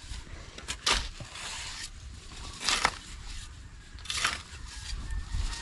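Steel shovels scraping and biting into a heap of loose soil: three separate strokes about a second and a half apart.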